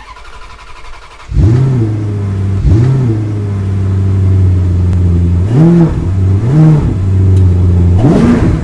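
Car engine idling, with five short throttle blips that rise and fall in pitch; it comes in suddenly about a second in.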